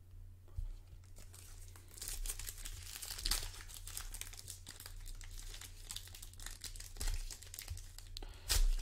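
Hands crinkling and tearing open the clear plastic wrapper of a basketball card pack. The crinkling starts about two seconds in, with a few louder rips along the way.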